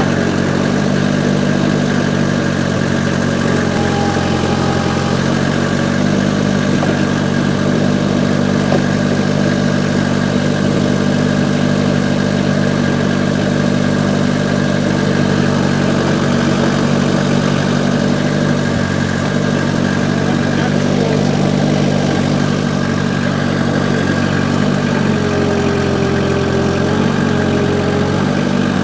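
Diesel engine of a Vermeer S925TX tracked mini skid-steer running steadily at low revs, its note shifting slightly a few times as the machine is worked.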